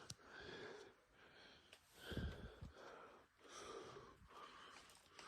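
A person breathing close to the microphone, several slow breaths in and out, with a low thud about two seconds in.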